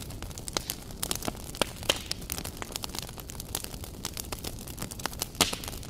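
Glowing wood embers crackling under a sac griddle: irregular sharp pops and crackles, with one louder pop near the end.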